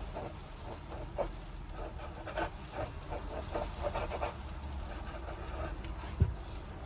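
Irregular scrubbing strokes of paint being rubbed off a canvas, then a single low thump near the end.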